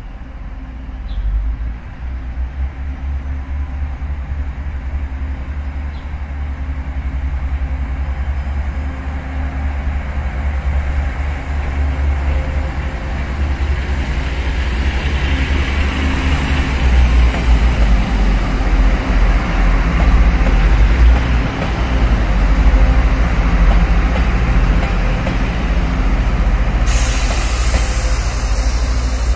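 DRC1000 diesel railcar set rolling slowly past, its diesel engines rumbling low and growing louder as the cars come alongside. A sharp hiss starts near the end.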